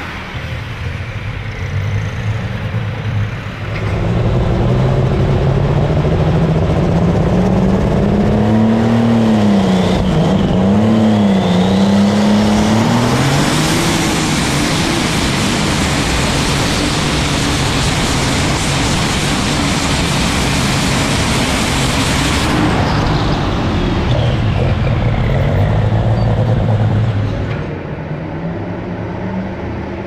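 An alcohol-burning light super stock pulling tractor engine runs at full throttle under sled load. Its pitch climbs and wavers, then it becomes a loud, wide roar for several seconds before easing off and dropping away near the end.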